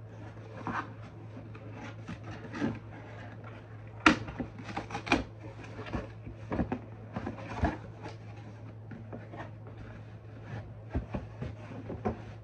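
Cardboard shipping box being handled and opened by hand: a string of scrapes, rubs and light knocks on the cardboard, with one sharper knock about four seconds in.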